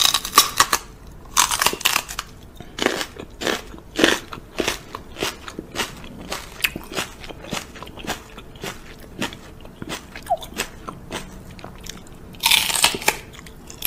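A run of quick, irregular wet lip smacks and clicks from a woman kissing a small white dog up close. The smacks come loudest in a cluster at the start and again near the end.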